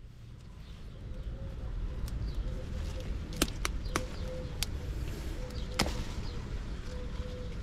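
Outdoor ambience: a low rumble of wind on the microphone, birds calling faintly in the background, and several sharp clicks, the loudest about three and a half and six seconds in.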